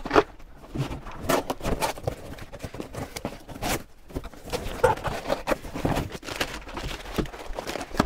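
Cardboard box and crumpled brown packing paper being handled during unboxing: irregular rustling, crinkling and knocks of cardboard against the table.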